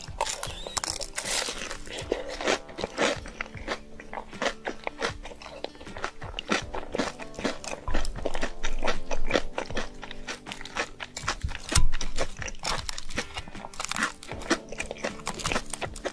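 Close-miked eating: many sharp, irregular crunches and chewing sounds, with background music throughout.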